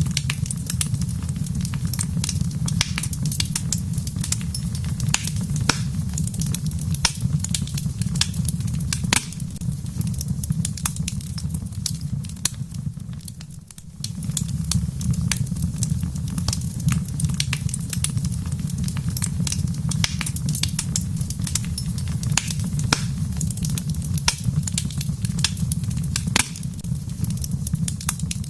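Wood fire crackling in a fireplace: irregular sharp pops and snaps over a steady low rumble. The sound dips briefly about halfway through, then resumes.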